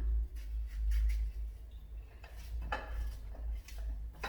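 Knife slicing through a peeled plantain, the blade clicking against the cutting surface several times at uneven intervals, over a steady low hum.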